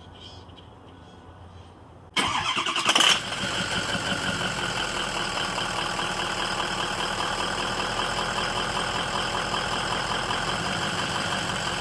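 Ford 6.0 Powerstroke V8 turbo-diesel being hot-started. About two seconds in, the starter cranks for under a second, the engine catches at its loudest moment, then it settles into a steady idle.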